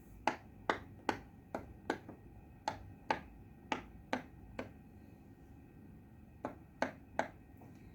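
Silicone Pop It fidget bubbles being pressed down one by one, each giving a short sharp pop, about a dozen in all at two or three a second, with a pause past the middle before three more.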